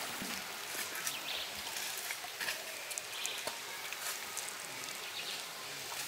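Shallow forest stream trickling over rocks and small cascades as a steady wash of water, with a few short sharp ticks on top.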